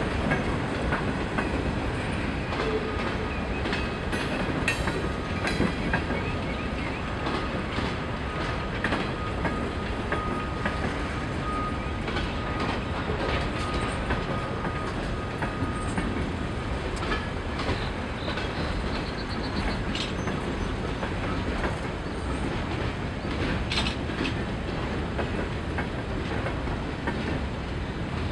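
Norfolk Southern freight train's cars rolling steadily past, their wheels clacking over the rail joints. A faint high steady whine runs through the first half and stops about seventeen seconds in.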